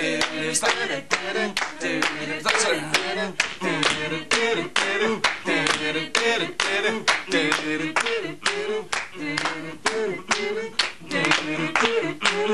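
Hand claps in a steady rhythm, clapping along in time to an upbeat song with singing.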